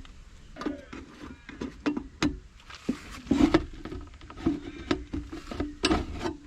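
Screws being undone and a mulcher's plastic shroud worked off by hand: irregular clicks, scrapes and light knocks of screwdriver and plastic.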